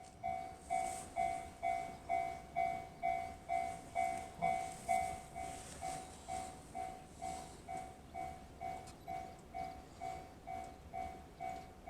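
Japanese railway level-crossing alarm bell ringing in an even electronic 'kan-kan' rhythm of about two strokes a second, warning of an approaching train. The strokes fade slightly after about five seconds.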